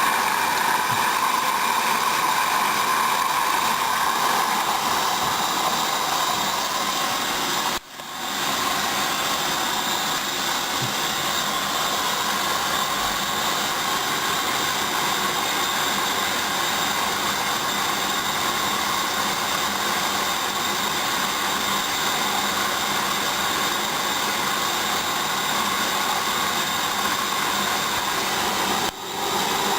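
Hoover Dynamic washing machine running steadily at the start of its main wash on the duvet programme, with two brief dropouts, about 8 seconds in and near the end.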